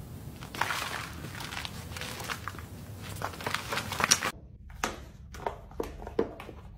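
Crunching, scratchy scraping of loose garden soil being disturbed, with many small crackles. It cuts off abruptly and is followed by about four separate light knocks on a hard indoor surface.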